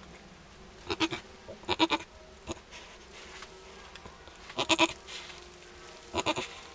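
Goat bleating four times, short wavering calls spread across the few seconds.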